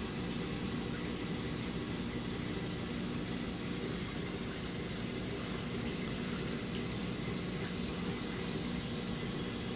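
Steady sound of running water with a low, even hum, from a saltwater reef aquarium's circulating pumps and plumbing.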